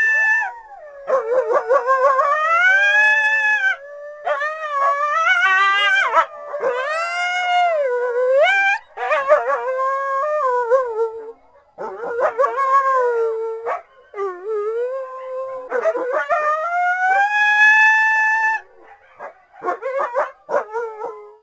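Coyotes howling: a run of rising, wavering howls with several voices overlapping at times, breaking into shorter choppy calls near the end before stopping.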